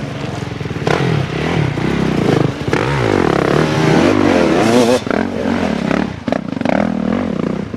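Two dirt bike engines revving hard under load on a steep, rutted climb, their pitch rising and falling again and again with the throttle.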